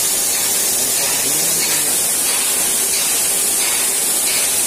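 Steady hiss of steam escaping from a coal-fired steam locomotive standing in steam.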